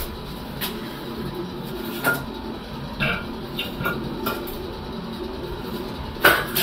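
Scattered light metallic clinks and knocks, the loudest near the end, as copper pipe and fittings are handled at a shower valve.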